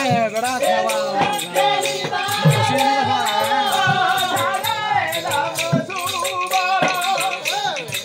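Odia pala folk music: a voice singing a wavering melody over low beats from a barrel drum and a continuous rattle of small hand percussion.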